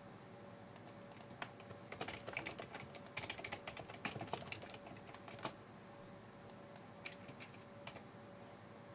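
Typing on a computer keyboard: a quick run of keystrokes, densest from about two to five and a half seconds in, then a few scattered clicks near the end.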